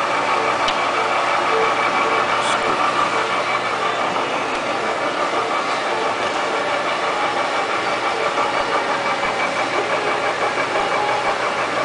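Sharp 21 x 120 geared-head engine lathe running under power with the carriage feeding: a steady mechanical drone with several constant gear tones and an even, rhythmic pulse. A couple of light clicks come in the first few seconds.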